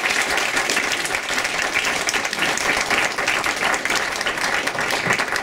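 A small audience applauding: dense, steady clapping from many hands.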